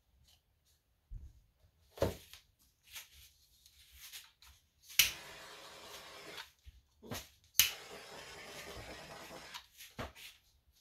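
Handheld butane torch lit twice, each time a sharp ignition click followed by a steady hiss of flame for about a second and a half to two seconds.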